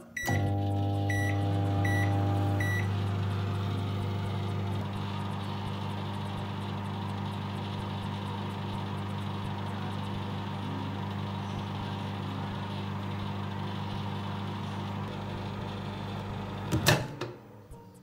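Microwave oven running while heating a mug of chai: a steady electrical hum with a fan, starting with three short keypad beeps in the first few seconds. About a second before the end a sharp click sounds and the hum dies away.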